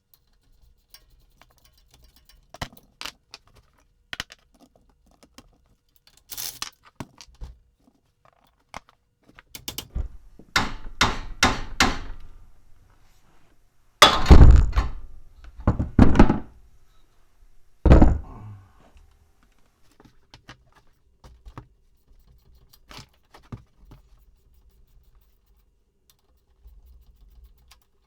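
Tools and metal parts clicking and knocking during the teardown of an ATV rear differential, with three heavy thunks about two seconds apart near the middle, the first the loudest.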